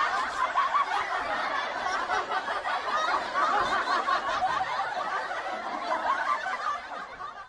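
Hushed snickering and giggling from people trying not to laugh, going on steadily and dying away near the end.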